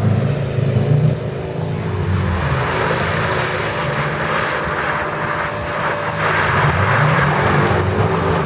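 A car engine running hard, its pitch dropping about a second in, holding steady, then climbing again near the end, over a steady hiss.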